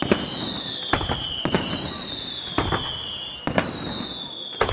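Setti Fireworks aerial shells bursting over the sea, about six sharp bangs at irregular intervals, with crackle between them.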